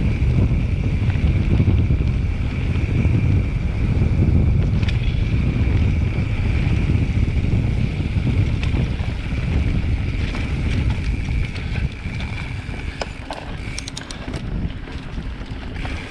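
Mountain bike rolling fast over a dirt forest trail, with heavy wind buffeting the microphone and the tyres and frame rattling over the ground. The rumble eases about twelve seconds in, and a few sharp clicks and ticks follow near the end.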